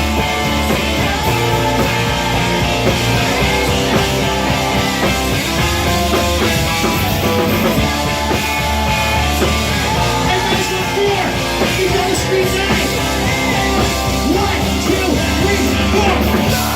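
Loud rock music with a punk feel, played live without let-up during a break between rapped verses.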